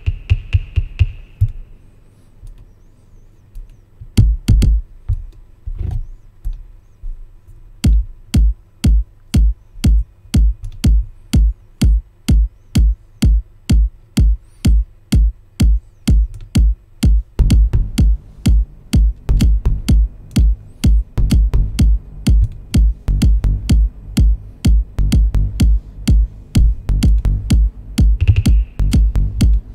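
Minimal techno beat played on a Native Instruments Maschine Mk2 groovebox. It opens sparse and quiet, then settles into a steady kick drum of about two beats a second, with heavier bass layers joining about halfway through.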